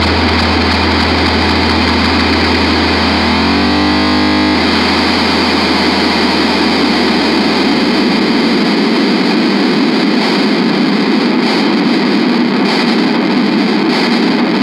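Distorted electric guitar and bass feedback ringing out as a hardcore punk song ends: a steady wall of distorted noise with no drums. A held low bass note cuts off about nine seconds in, and a note slides upward briefly around three to four seconds in.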